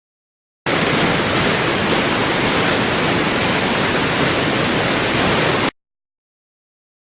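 Steady rush of falling water, like a waterfall or torrent, even and without pattern; it starts and stops abruptly, lasting about five seconds.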